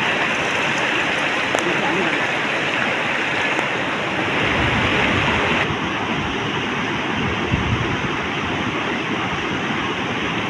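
Steady rush of fast-flowing water from a stream, with a change in its tone about halfway through.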